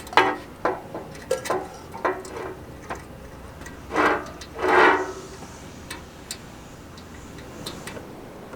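Irregular metallic clicks and clinks of hardware being handled, with two louder ringing clanks about four and five seconds in.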